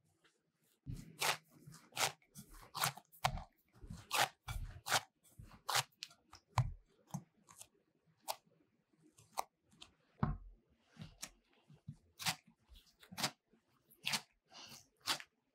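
Hands squeezing and kneading a shaggy flour-and-milk bun dough: irregular squishy crackles, roughly one or two a second, some with a soft low thump as the dough is pressed down.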